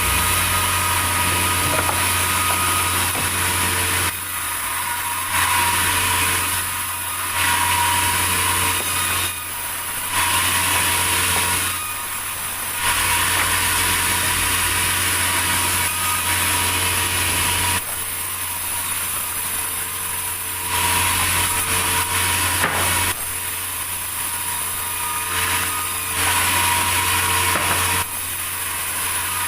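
Sawmill saw cutting durian wood over a steady motor hum, the cutting noise growing louder and dropping back again and again as the blade works through the log.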